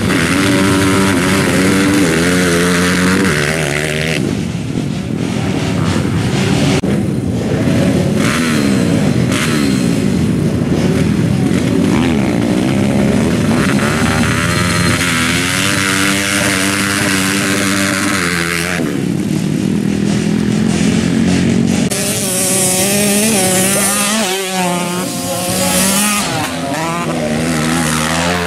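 Motocross dirt bikes revving hard as they ride the dirt track, the engine pitch rising and falling over and over as they accelerate and pass, with a change of bike several times.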